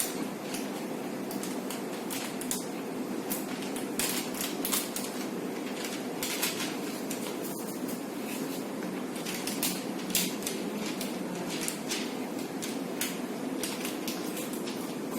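Irregular clicks, taps and clatter of plastic and metal TV parts being handled, over a steady low hum.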